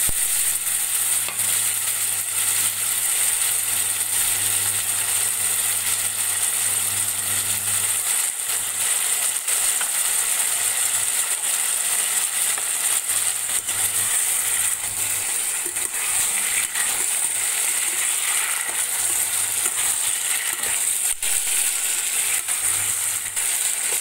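Chopped bitter gourd and potato sizzling in hot oil with onions and green chillies in a kadhai: a steady, loud frying hiss, with the odd click of a slotted spoon stirring.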